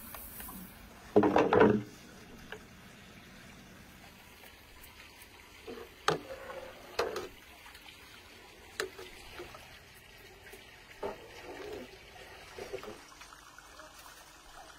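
Watermelon juice being stirred in a large aluminium pot with a metal ladle: sloshing liquid and occasional short knocks of the ladle on the pot, with a louder burst of sound about a second in.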